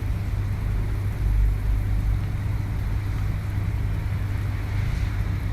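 A steady low machine hum with no change in pitch or level.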